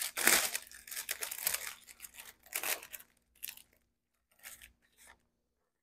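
Crinkling of a clear plastic bag and rustling of precut parchment paper sheets as they are handled and pulled from the packaging. The rustling is dense and loudest in the first half, then thins out to a few softer rustles.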